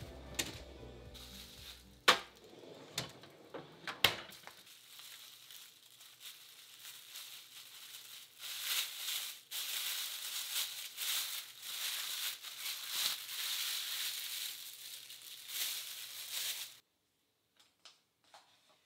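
Plastic cling wrap crinkling and crackling as it is peeled off a bowl of pizza dough, for about eight seconds, then cutting off abruptly. Earlier, a kitchen drawer knocks sharply twice, about two seconds apart.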